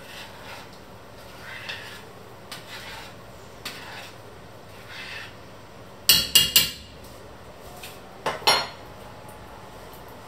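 A metal spoon stirring a thick sauce in an enamelled pot, with soft scraping strokes. About six seconds in, the spoon knocks sharply against the pot's rim three or four times in quick succession, and another sharp metal clatter follows about two seconds later.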